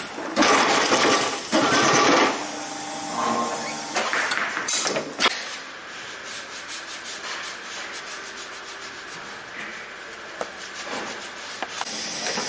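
Tyre-shop machinery at work: a harsh rubbing, rasping noise for about the first two seconds, then a quieter machine hum with a fast, even ticking from about halfway through.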